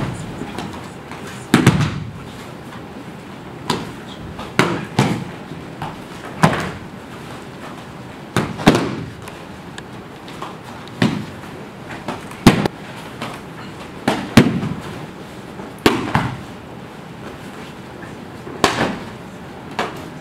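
Aikido students being thrown and landing on a mat: sharp slaps and thuds of breakfalls every second or two, irregularly spaced, some coming in quick pairs.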